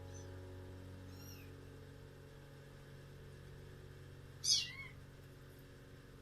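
A house cat meowing: one short, loud meow falling in pitch about four and a half seconds in, after two faint high mews near the start, over the fading tail of piano music.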